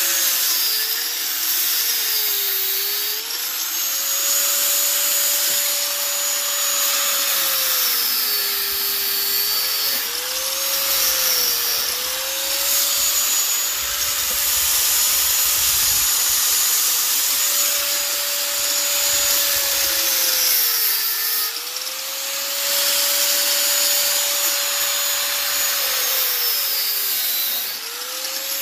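Corded angle grinder running at speed and cutting through a finned air-conditioner coil, with a steady whine over a harsh grinding hiss. Its pitch sags several times as the disc bites into the metal and bogs the motor under load, then climbs back as it frees up.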